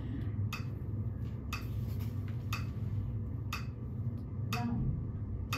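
Metronome clicking steadily, six clicks about one second apart.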